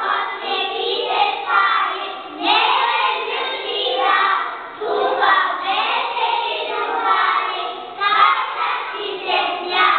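A group of young children singing a song together loudly, in phrases broken by short pauses every couple of seconds.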